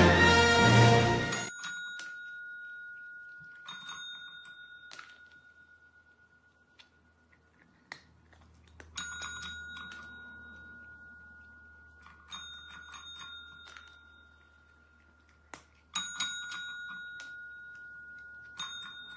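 Desk service bells struck repeatedly by cats' paws: about six separate dings, each ringing on and fading, with a few soft clicks in between. Music cuts off about a second in.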